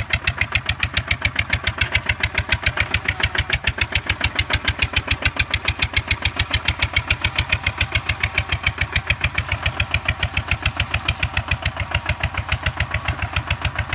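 Single-cylinder diesel engine of a two-wheel walking tractor running steadily under load while plowing wet paddy mud, with an even, rapid exhaust beat.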